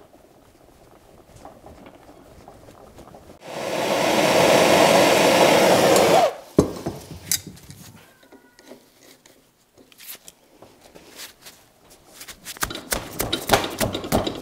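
A loud, steady rushing hiss lasts about three seconds and cuts off suddenly with a click. After it come scattered metal clicks and knocks, then a spell of scraping near the end, as water-pump pliers grip and work a collar on a drive shaft clamped in a vise.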